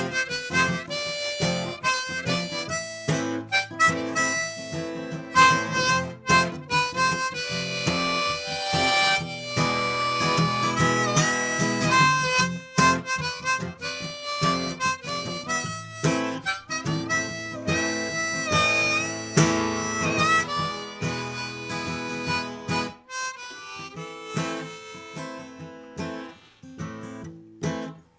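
Harmonica played in a neck rack, a solo of changing held and bending notes over acoustic guitar accompaniment, getting quieter over the last few seconds.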